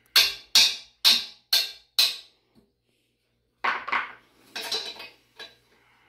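Five hammer blows on the metal exhaust elbow of a diesel engine, about two a second. After a short gap come a metal clatter and light clinks of a wrench working the bolts of the exhaust pipe flange.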